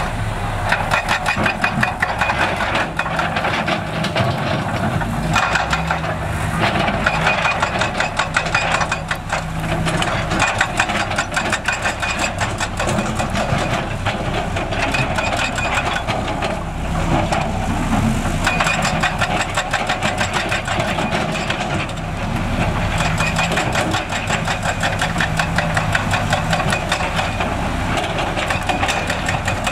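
Diesel engine of heavy construction machinery running with a steady clatter, its load rising and easing every few seconds as the machine works.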